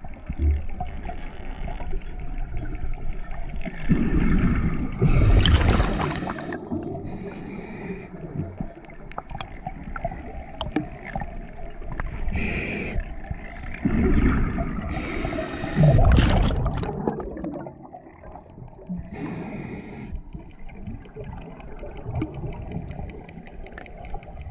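Underwater water noise picked up by an underwater camera: a steady low rumble, with several louder gushes of gurgling bubbles lasting a few seconds each, about four seconds in and again around fourteen and sixteen seconds.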